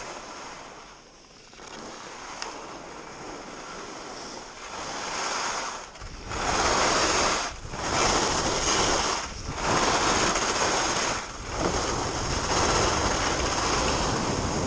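Skis sliding and carving down groomed snow, mixed with wind rushing over the camera microphone. It gets much louder about six seconds in as speed builds, then swells and dips in a few waves, one for each turn.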